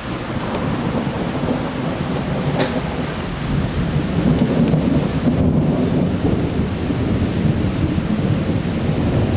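Heavy downpour of rain, with a low rumble of thunder that builds and grows louder about halfway through.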